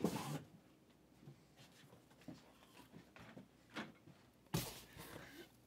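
Faint handling noises: scattered soft knocks and ticks, with a brief rustle at the start and another about four and a half seconds in.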